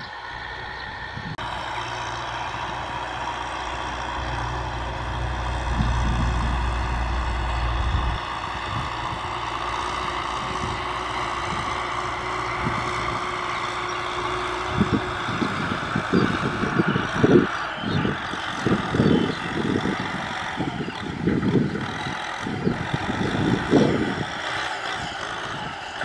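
Kubota M6040SU tractor's four-cylinder diesel engine running steadily under load while pulling a disc plough, with uneven low rumbling over the second half.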